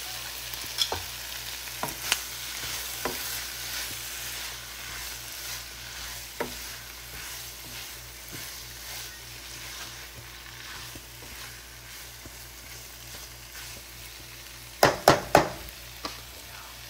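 Shrimp with onions and peppers sizzling in a frying pan, stirred with a spatula that clicks and scrapes against the pan now and then. Near the end, a quick run of three or four loud knocks.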